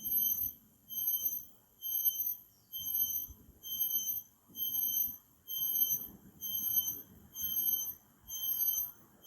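A cricket chirping, with high, clear chirps of about half a second each repeated evenly at roughly one per second.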